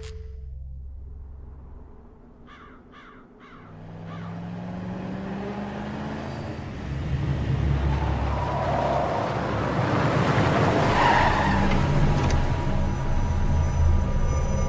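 Car engine running; a few short clicks sound about three seconds in, then its pitch rises and a loud rumble builds up and holds.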